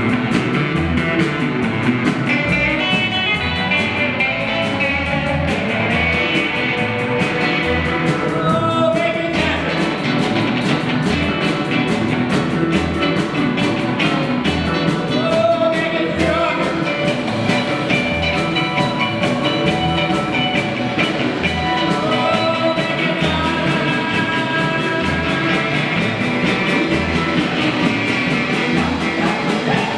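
Small rock band playing live on electric guitars and a drum kit, with a steady kick-drum beat under strummed distorted guitars and cymbals.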